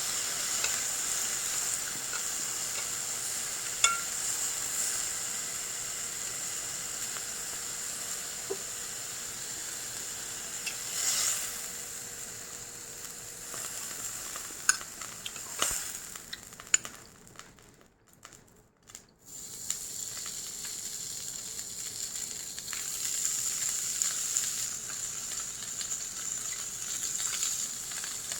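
Japanese A5 Wagyu beef searing on a hot iron plate: a steady sizzle with a few sharp pops and clicks. About two-thirds through the sizzle briefly falls away almost to nothing, then returns.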